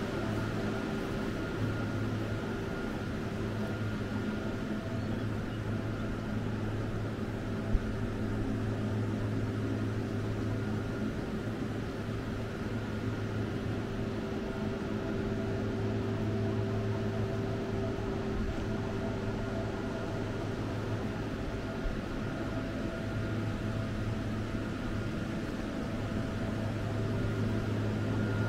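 Steady machinery hum made of several steady tones, the low one strongest. A sharp click comes about eight seconds in and a fainter one a little past twenty seconds.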